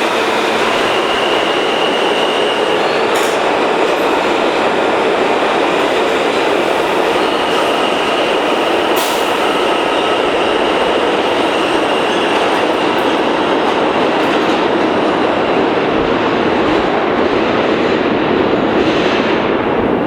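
New York City subway train running along the rails at the station, a loud steady rumble of wheels and track. A thin high squeal comes and goes over it, with a couple of sharp clicks.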